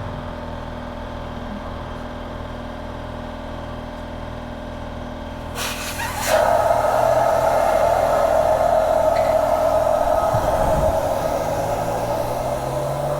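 A steady low mechanical hum. About six seconds in, a short rush of noise, then a machine motor starts and runs steadily with a strong even whine.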